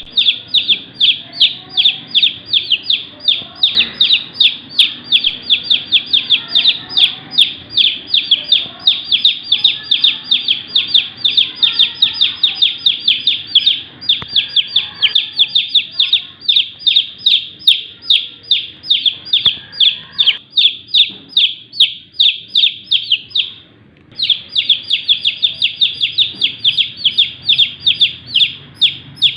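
Baby chicks peeping: rapid, high-pitched chirps several times a second, with a brief pause near the end.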